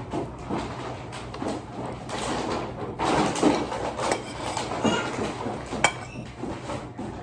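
Metal cutlery scraping and tapping against a ceramic plate of rice during a meal, with one sharp clink about six seconds in, over general household clatter.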